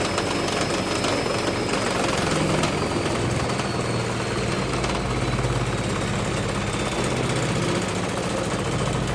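Candy washing machine running with its drum spinning, a steady motor hum under continuous dense rattling and knocking from loose objects thrown around inside the drum. The hum deepens about halfway through.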